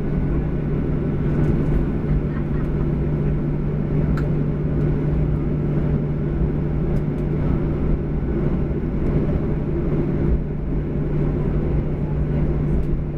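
Boeing 737-800's CFM56-7B turbofan engines at taxi idle, heard inside the cabin as a steady low drone with one constant hum.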